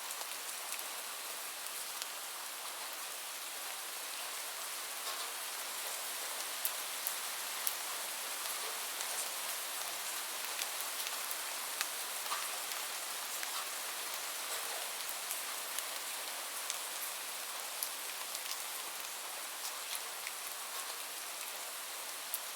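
Light rain falling: a steady, even hiss with scattered sharp ticks of individual drops hitting a surface.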